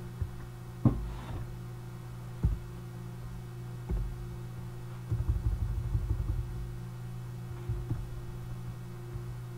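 Steady low hum of a computer with a faint steady tone above it, broken by dull mouse clicks and knocks on the desk: single ones about 1, 2.5 and 4 seconds in, then a quick run of clicks around the middle and a couple more near the end.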